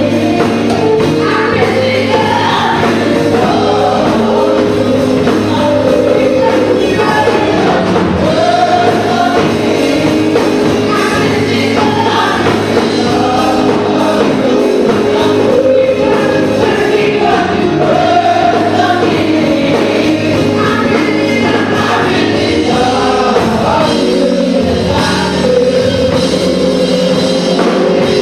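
Gospel choir singing with a live band accompanying.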